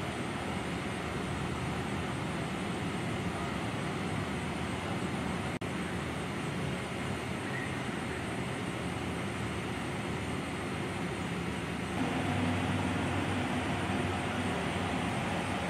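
Steady outdoor road noise with vehicle engines running, broken by a brief drop-out about five and a half seconds in. About twelve seconds in, a louder, steady low engine hum sets in.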